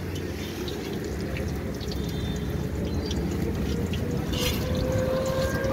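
Oil sizzling and crackling as a mughlai paratha fries in an iron kadai, over a low steady rumble. A steady hum comes in near the end.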